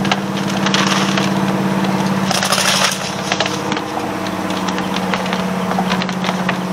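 A motor engine running steadily, its pitch dropping slightly about four seconds in, with light clicks and knocks over it.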